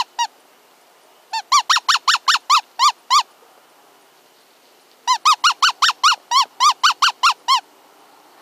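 Predator call sounding a distress cry: short, high, pitched notes, each rising and falling, about five a second. A few notes end just after the start, then two longer runs of a dozen or so notes follow, the second about five seconds in. The call is used to lure coyotes.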